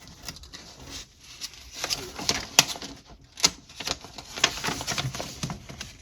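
Paper pages of a printed catalog being handled and turned, with irregular crisp rustles and sharp clicks.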